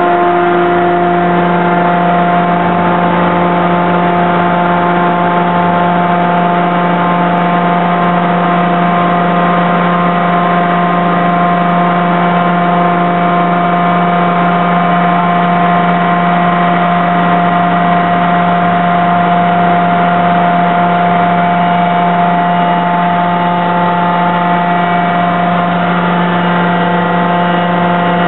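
Hydraulic power unit of a large CNC die forging hammer running steadily: a loud, even machine hum made of several steady tones, with no hammer blows.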